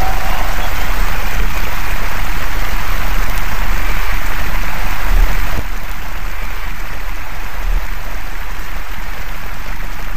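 Concert audience applauding loudly at the end of a song, a dense even clatter of clapping; it drops suddenly to a lower level about five and a half seconds in.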